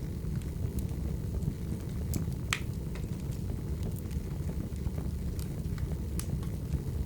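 Wood fire burning with a steady low rumble and scattered sharp crackles and pops, one louder pop about two and a half seconds in.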